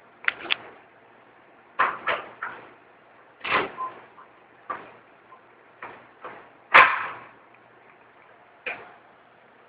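A series of about ten irregular knocks and clacks, sharp and short, with the loudest one about seven seconds in.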